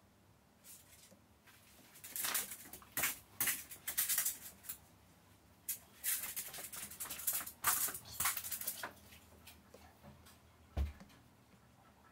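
Apple Pencil tip scratching and sliding over the iPad's glass screen in two runs of quick, short strokes, with a single soft thump near the end.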